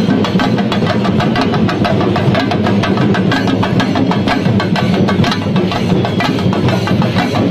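A group of chenda drums beaten fast with sticks, a loud, dense, unbroken roll of strokes.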